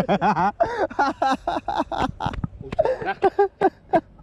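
A group of men laughing, in quick repeated ha-ha pulses in two runs, with a few words mixed in.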